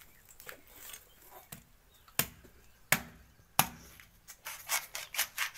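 A heavy curved knife chopping into palmyra palm fruits (nungu): three loud chops a little under a second apart about two seconds in, then a quicker run of lighter cuts near the end as the fruit tops are sliced off.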